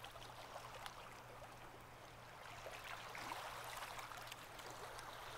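Faint ocean surf ambience: a soft, steady wash of waves on the shore that swells slightly in the second half, with a faint low hum under it.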